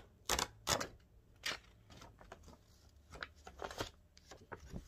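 Paper being handled and torn: a string of short, uneven rustles and rips, the loudest in the first second and more a little after the middle.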